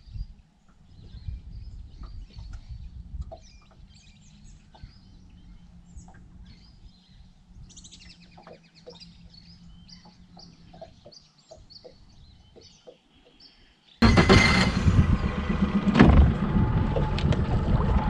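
Birds chirping and calling, many short high chirps over a faint low hum. About fourteen seconds in, this gives way abruptly to a boat under way: an outboard motor running, with wind and water rushing past loudly.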